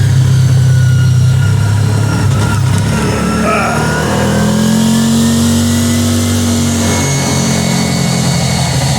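ATV engine running under way. The engine note rises a little about halfway through, then eases back after a couple of seconds.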